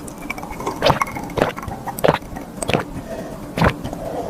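A person eating close to the microphone: chewing, with about five sharp clicks at irregular spacing.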